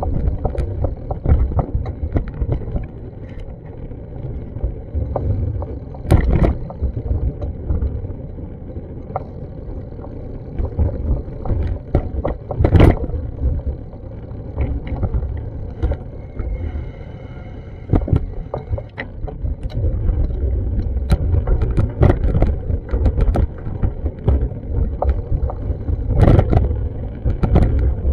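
Wind buffeting an action camera's microphone: a low rumble that keeps swelling and fading, with scattered clicks and a few sharper knocks.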